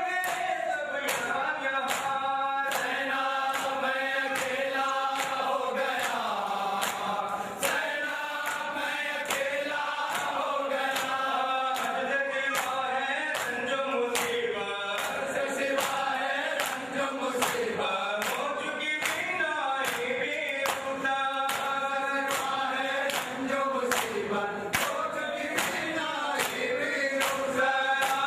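A group of men chanting a Muharram noha (lament) in unison, over a steady beat of sharp hand slaps about once or twice a second, typical of matam chest-beating.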